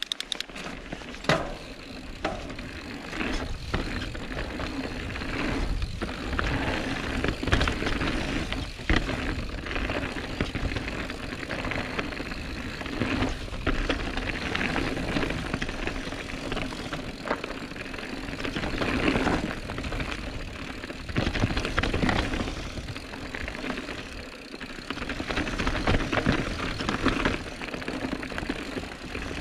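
Calibre Sentry mountain bike descending a downhill dirt track: tyres rolling over the ground, with the frame, chain and suspension rattling and sharp knocks over bumps.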